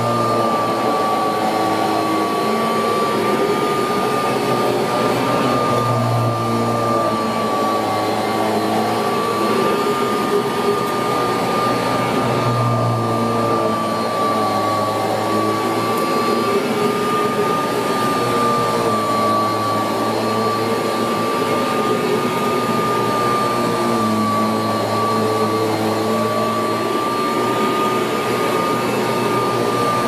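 1981 Kirby Heritage 1 upright vacuum cleaner running while pushed back and forth over carpet: a steady motor noise with a high whine that wavers slightly in pitch.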